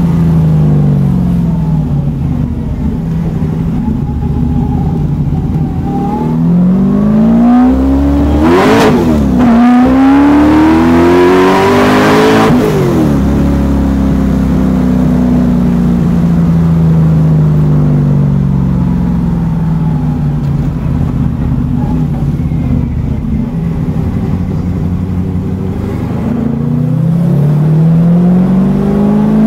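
Fuel-injected 447-cubic-inch Windsor small-block Ford V8 on eight individual throttle bodies, heard from inside the car while driving. The revs climb sharply to a peak and drop about nine seconds in. They climb at once to a second peak a few seconds later, then sink slowly as the engine settles back. The revs rise again near the end.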